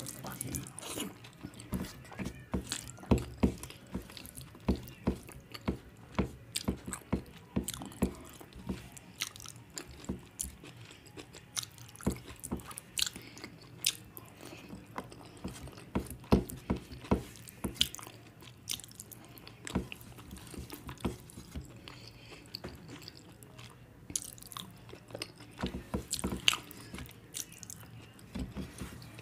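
Close-miked eating sounds: chewing a mouthful of rice and curry, with frequent irregular wet smacks and clicks of the lips and mouth.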